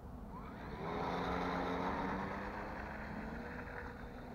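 Electric motor and propeller of a small RC Cessna 182 model plane throttling up with a rising whine about half a second in, then running steadily and fading as the plane rolls away on its takeoff run.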